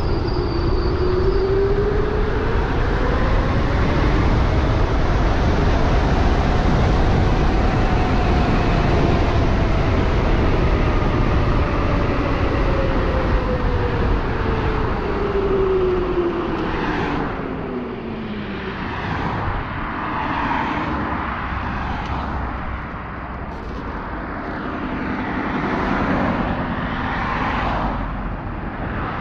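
Electric bike hub motor whining as the bike speeds up and then slows: a single tone climbs in pitch over the first few seconds, then falls steadily away by about two-thirds through. Heavy wind and tyre rush runs underneath, and a string of short noise gusts comes near the end.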